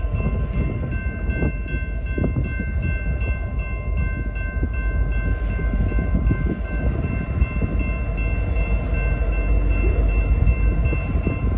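Nathan K5LLA five-chime air horn on an approaching BNSF locomotive, a chord held without a break, over the rumble of the diesel locomotives.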